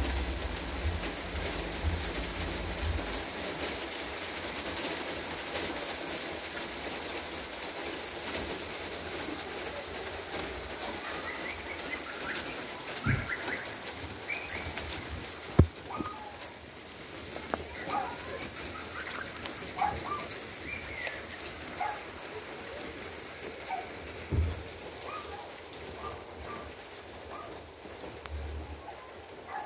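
Steady rain falling on pavement, cars and lawn during a hailstorm. Birds chirp from about a third of the way in, and a few sharp knocks stand out, the loudest about halfway.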